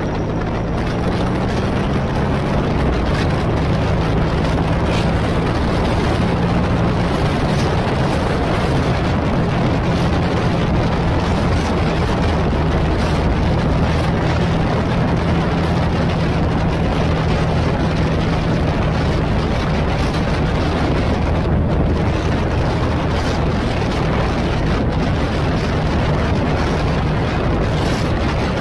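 Motorcycle engine running at a steady cruise, a low even hum, under a constant rush of wind and road noise.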